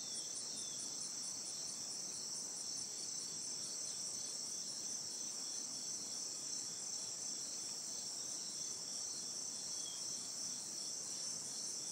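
A steady, high-pitched chorus of crickets and other insects trilling with a fast, even pulse.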